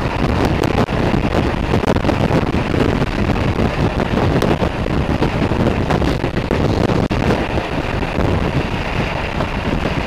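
Wind noise buffeting the microphone over the steady drone of a motorcycle's engine and tyres at motorway speed.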